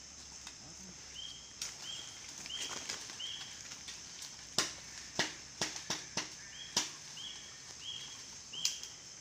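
Footsteps and sharp snapping of twigs and debris as a man walks along a felled tree trunk, with a cluster of snaps in the middle, the loudest about halfway through. Underneath runs a steady high insect drone, and a short call repeats four times, twice over, like a bird.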